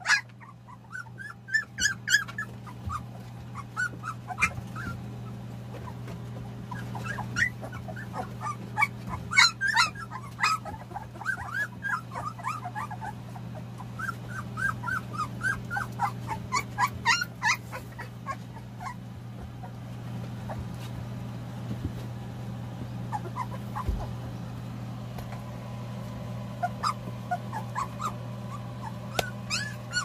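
Young puppies whimpering and squeaking in clusters of short, high cries as they push in under the mother dog to nurse, begging for milk. A steady low hum runs underneath.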